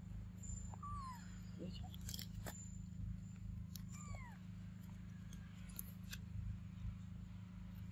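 Young macaques giving two short, high arched coo calls, about a second in and about four seconds in, with a few sharp clicks, over a steady low hum.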